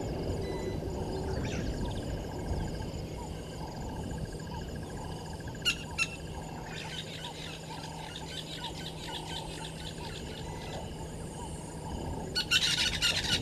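High-pitched chirping and twittering calls over a steady drone of insects, with a louder burst of chirps near the end.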